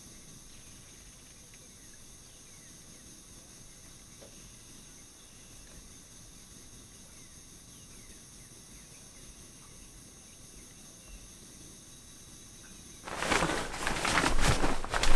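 Faint, steady outdoor hiss with a few faint, distant bird chirps. About thirteen seconds in, loud crinkly rustling starts suddenly as a nylon air mattress is pulled and handled.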